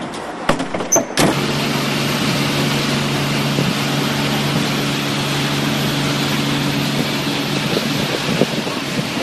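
An ambulance's rear doors banging shut twice in the first second. Then a river boat's engine runs steadily with the rush of its propeller wash churning the water.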